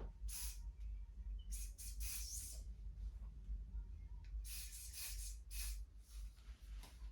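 Aerosol deodorant can spraying in several short spurts of hiss, held close to the microphone.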